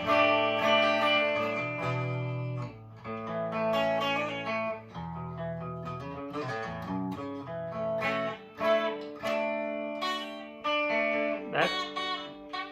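Chibson Les Paul Custom electric guitar played clean through a Marshall DSL40 combo amp in the middle pickup position, both pickups on: a run of strummed chords that ring out and change every second or so.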